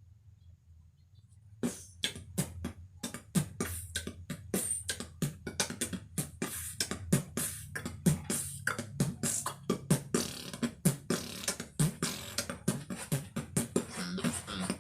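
Mouth percussion (beatboxing): a quick, rhythmic run of clicks, pops and hisses made with the mouth, starting about one and a half seconds in after near silence.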